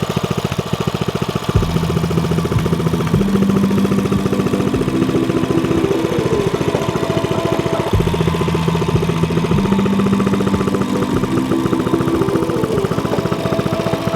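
Background music with a fast buzzing pulse and a bass line that steps up in pitch; the same phrase repeats about every six seconds.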